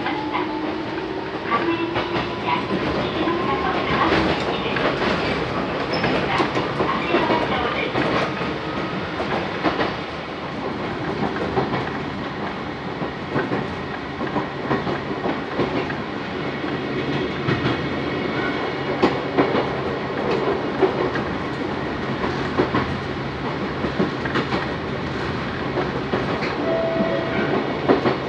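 Nankai Shiomibashi Line train heard from inside the car as it pulls away: a whine rising in pitch over the first few seconds as it gathers speed, then a steady run with the wheels clicking over rail joints.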